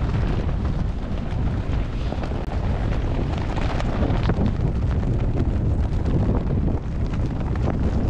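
Strong gusting wind buffeting the microphone: a loud, continuous low rumble with frequent short crackles.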